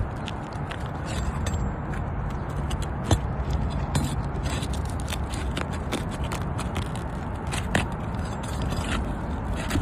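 Scraping and crackling of a pry tool worked under asphalt roof shingles to break their sealant strip and free the nails, with occasional sharp clicks and ticks, over a low steady rumble.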